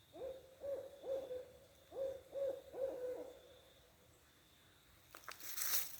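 Owl hooting: six hoots in two groups of three, each note sliding up, holding a steady pitch and then dropping away. Rustling and crackling begin near the end.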